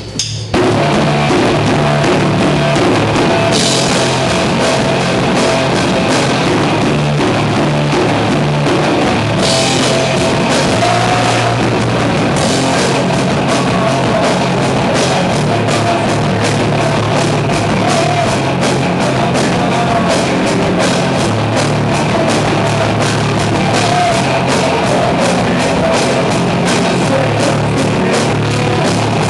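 Rock band playing live at full volume: distorted guitars, bass and a drum kit with dense cymbal hits. The full band crashes in about half a second in and then plays on steadily.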